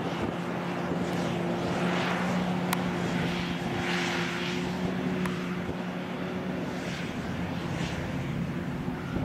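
Claas forage harvester and tractors working a grass field: a steady diesel engine drone with a constant low hum, and a rushing hiss that swells and fades a few times.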